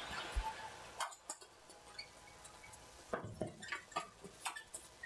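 Badminton rackets striking a shuttlecock in a fast rally: a run of sharp, irregular pops, with short squeaks of shoes on the court between them.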